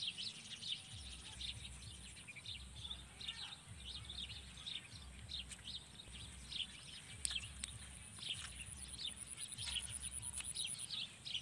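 Small birds chirping and twittering continuously in the open field, with a faint steady high whine and an irregular low rumble beneath.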